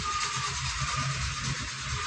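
Powertex PPT-AG-100G 1100 W four-inch angle grinder running with a cutting blade, making a steady hiss with a faint high whine.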